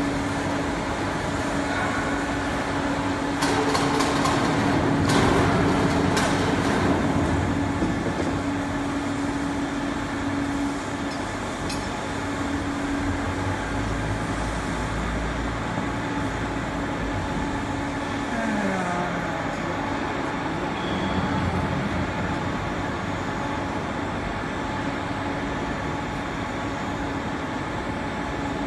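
Steady industrial machinery noise with a constant hum. A few sharp clicks come in the first quarter, and a brief falling whine comes about two-thirds of the way through.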